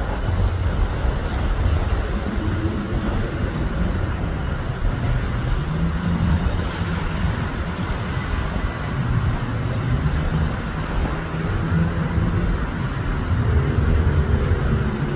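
Road traffic close by: car engines running and passing, a steady low rumble with engine hum that swells and fades several times.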